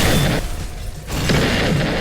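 Two loud booming blast sound effects, one at the start and another about a second later, each a burst of noise lasting most of a second.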